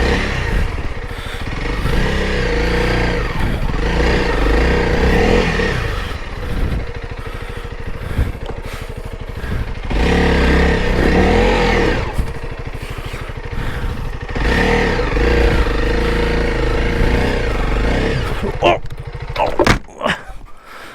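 2021 Honda CRF300L Rally's single-cylinder engine revving in repeated surges under load, falling back between them. There are a few sharp clatters near the end.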